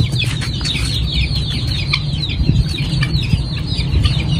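Chicks peeping: many quick, high, falling cheeps overlapping one another, over a steady low rumble.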